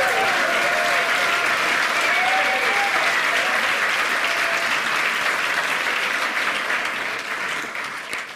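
Studio audience applauding, dying down near the end.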